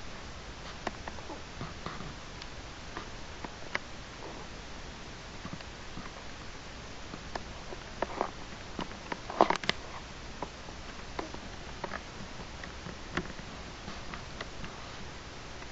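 Hiccups, heard only faintly as scattered short clicks, the loudest a brief cluster about nine and a half seconds in.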